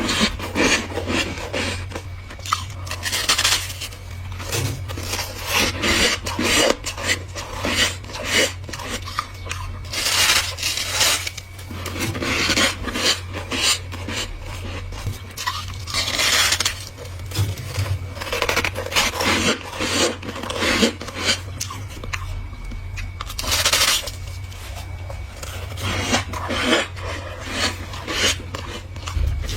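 Ice being bitten and chewed close to the microphone: a steady run of irregular crisp crunches, with louder bites every few seconds.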